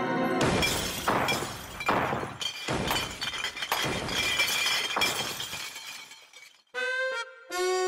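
Glass shattering in a run of crashes with high tinkling, starting about half a second in and dying away over about five seconds. Music starts again near the end.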